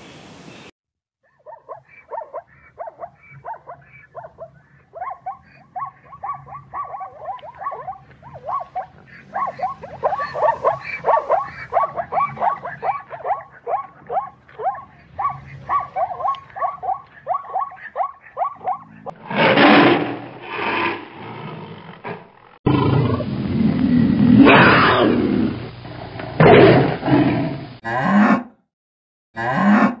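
Animal calls: a long run of quick, repeated calls several times a second, then from about two-thirds of the way in, louder and longer calls.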